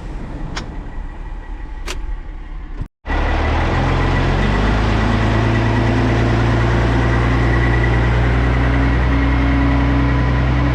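Vehicle rumble with two light clicks, then, after a brief break, an engine running steadily at constant speed with a faint high whine.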